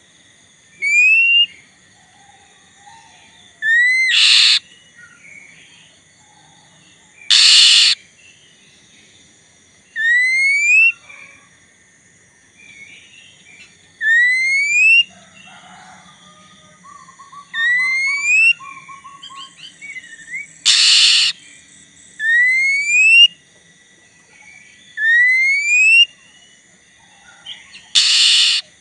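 Black-breasted oriental magpie-robin (kacer) in full song: a loud rising whistle repeated about every three seconds, broken by a few loud, short harsh notes.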